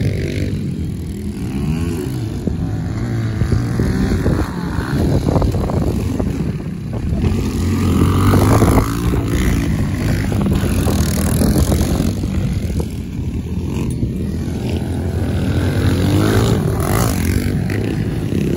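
Kawasaki KLX110 pit bikes' small single-cylinder four-stroke engines revving hard as they race past. The pitch rises and falls with the throttle through the turns.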